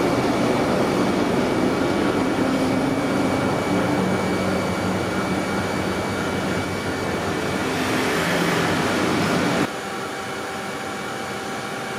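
Diesel engine of a heavy tractor-trailer running as the truck drives slowly past, with road noise. A little under ten seconds in, the sound cuts abruptly to a quieter engine from a second truck.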